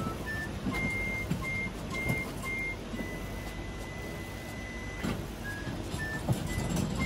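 A simple electronic melody of pure beeping notes, one note at a time, stepping up and down in pitch with one note held for about two seconds mid-way, over a steady low rumble.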